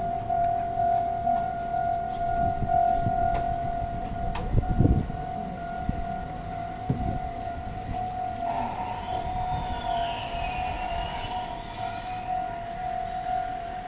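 Japanese railway level-crossing warning alarm sounding steadily. A brief low rumble comes about five seconds in; past the middle a second, higher tone joins and high squeals rise and fall as a train passes over the crossing.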